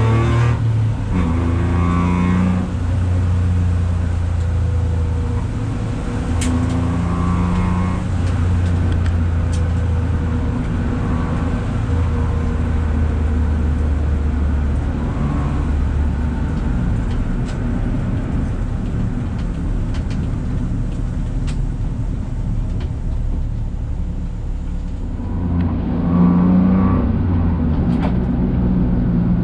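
Daihatsu Esse's engine running as the car is driven, its note stepping up and down several times with throttle and gear changes.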